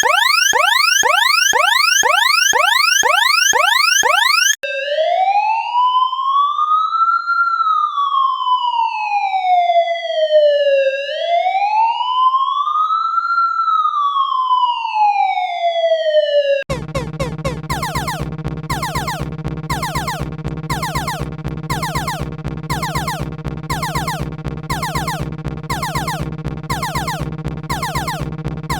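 A series of electronic alarm and siren sound effects. First, a fast alert alarm of rapidly repeated rising sweeps. Then, about 4.5 s in, a siren wails slowly up and down twice, and near 17 s it gives way to a dense electronic tone pattern pulsing about twice a second.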